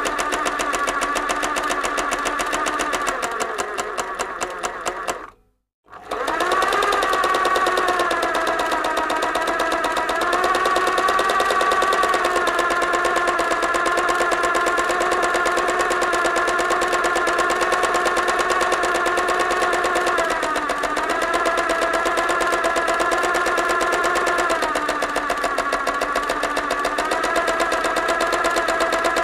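Electric sewing machine running fast: a steady motor whine with a rapid stitching clatter. It slows and stops about five seconds in, starts again straight away, and changes speed a few times later on, dipping around twenty seconds and again near twenty-five.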